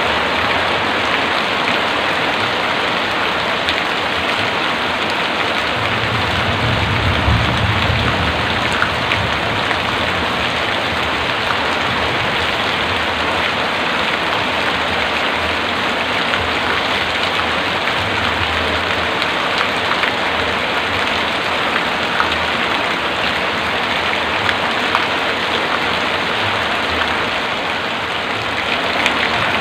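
Heavy rain falling steadily, a dense even hiss of drops, with a low rumble swelling briefly about six to nine seconds in.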